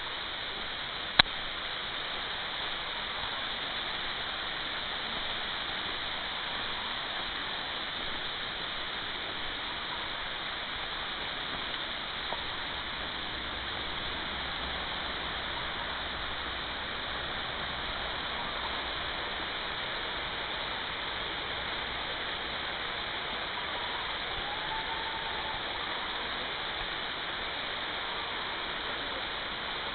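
Steady rush of running water from a stream or small waterfall in the forest, with a single sharp click about a second in.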